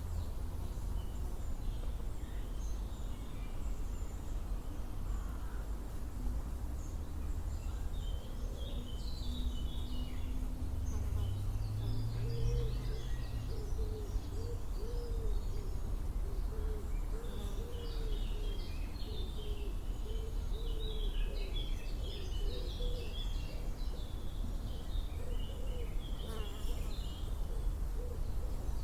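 Birds calling outdoors: scattered high chirps, and from about a third of the way in a low-pitched call repeated over and over, over a steady low rumble.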